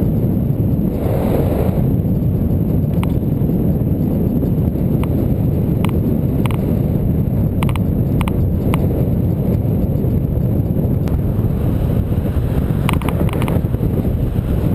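Wind rushing over the microphone of a camera mounted on a moving bicycle, a steady heavy rumble, with a few short clicks scattered through it.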